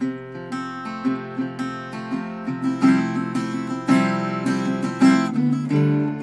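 Two acoustic guitars playing together without singing: a run of picked notes, with stronger strummed chords about once a second in the second half.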